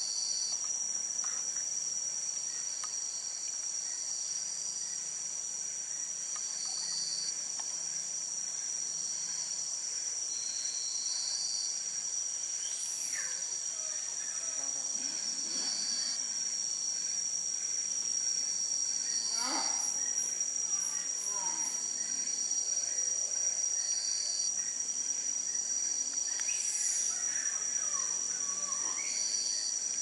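Forest insect chorus: a steady high-pitched drone, with a second buzzing tone that switches on and off every couple of seconds. A few faint falling calls come through near the middle and toward the end.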